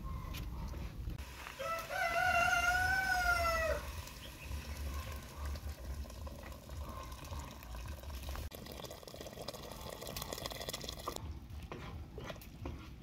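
A rooster crowing once, a single drawn-out call of about two seconds that starts a little over a second in and arches up in pitch, then falls slightly at the end.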